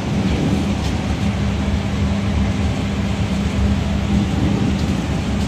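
Steady drone of commercial kitchen machinery: a constant low hum over an even rushing noise, with no breaks.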